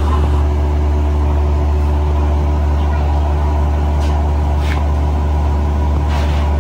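Steady low machinery drone in a metal foundry, with a few faint short hisses about four and six seconds in.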